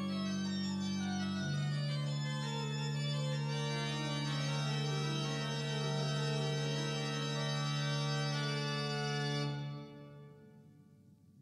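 Organ music: slow sustained chords over a held bass note, changing once early and dying away about ten seconds in.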